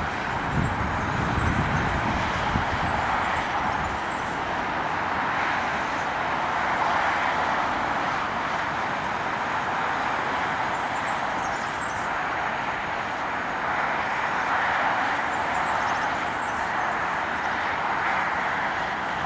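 Steady rushing noise of an Airbus A340 airliner in motion, with a low rumble during the first four seconds that then dies away.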